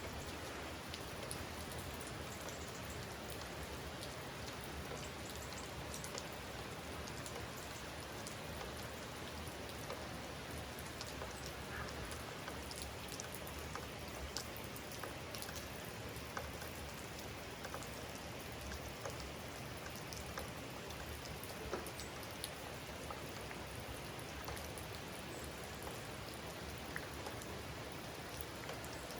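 Steady rain falling, with many individual drops striking close by as short, scattered ticks.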